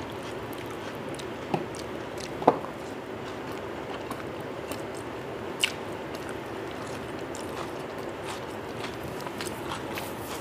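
Mouth sounds of eating biryani by hand: chewing, with soft smacks and small clicks scattered through and a few sharper ones about one and a half, two and a half and five and a half seconds in, over a steady low hum.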